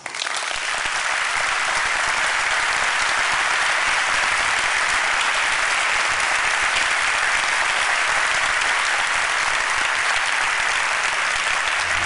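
Large auditorium audience applauding, starting all at once and holding steady.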